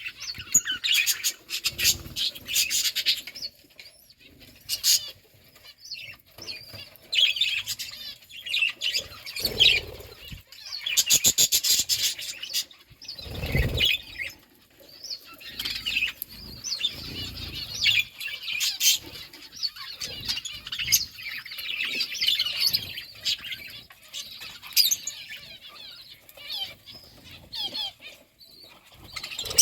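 Budgerigars chattering and chirping in a busy warble, with bursts of rapid clicking and wing flutter in the middle.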